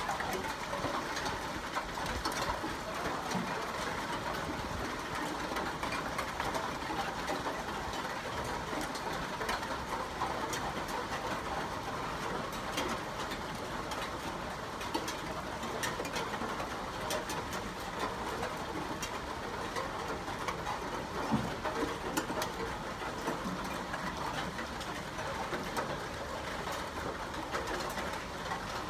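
Steady rainfall: an even hiss with many fine drop clicks.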